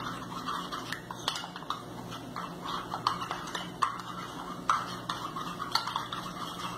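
A spoon stirring cornstarch into a little milk in a small glass cup, clinking lightly against the glass about two or three times a second.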